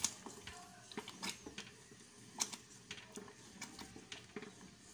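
Wooden spatula stirring spaghetti sauce in a stainless steel saucepan: faint, irregular clicks and scrapes against the pot, with a sharper knock about two and a half seconds in.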